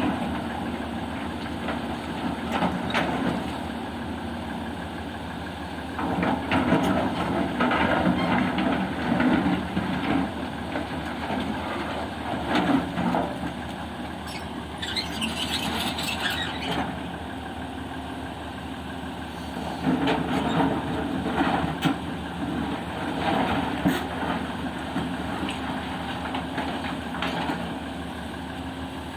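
Heavy diesel engine running steadily, with repeated louder surges as it works. A hiss of air lasts a couple of seconds about halfway through.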